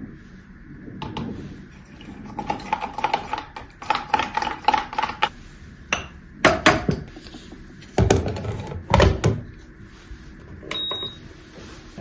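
Objects being handled and set down: a run of quick clicks and clinks, then heavier knocks around six and a half seconds and twice between eight and nine and a half seconds in, with a short ringing clink near the end.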